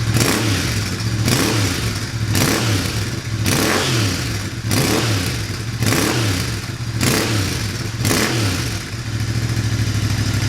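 Royal Enfield 650 parallel-twin engine through a TEC Stinger 2-1 aftermarket exhaust, its throttle blipped about once a second, each rev rising and falling back, then held at a steady speed near the end.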